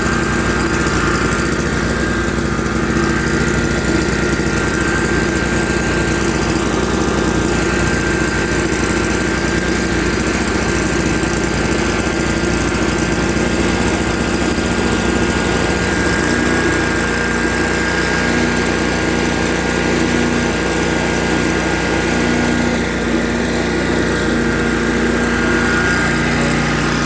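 Riding lawn mower's small gasoline engine running steadily in neutral, warming up after a cold start.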